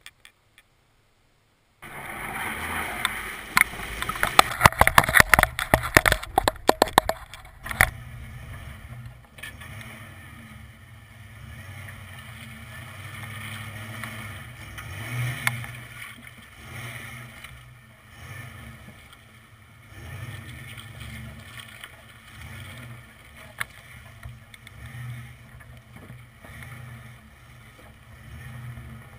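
1992 Ford F150's 5.0L V8 running at low speed as the truck crawls a dirt trail, heard from a microphone mounted low on the body near a wheel, with wind and tyre rumble. The sound begins about two seconds in with several seconds of loud crackling and clicks, then settles into a steady low engine hum that swells and eases.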